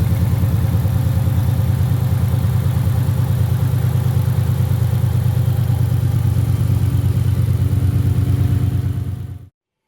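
2021 Mustang GT's 5.0-litre V8, fitted with a 3.0-litre Whipple supercharger, idling steadily; the sound cuts off abruptly near the end.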